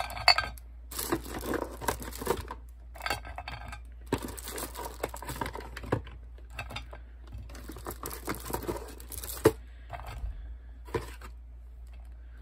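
Small plastic dolls and doll heads being set down and shuffled in a baking pan: clattering and rustling in bursts with sharp clicks and knocks. The handling thins out to a few single clicks near the end.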